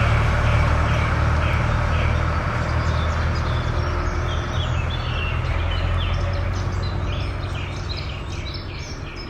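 A passing tractor's engine drone, low and steady, fading away as it moves off, while small birds chirp repeatedly in the trees, more busily in the second half.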